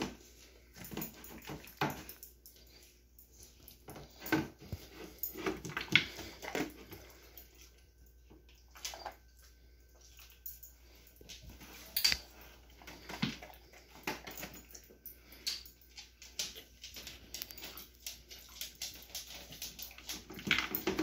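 Dog eating from a slow feeder bowl: irregular clicks and clatter of food and muzzle against the bowl, with wet chewing and licking between them.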